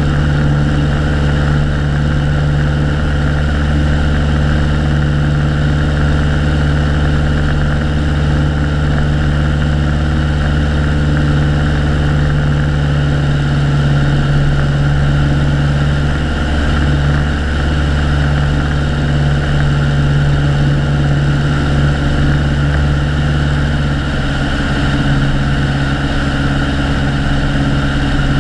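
Piper Colt's Lycoming O-235 four-cylinder engine and propeller running at a steady cruise setting in flight, heard from outside the cabin as an even, unchanging drone.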